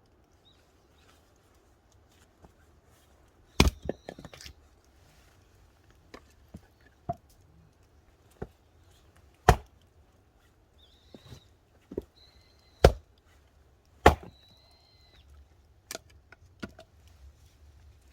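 Firewood being split with an axe: a series of sharp chopping strikes on wood at irregular intervals of a second or more, several of them much louder than the rest.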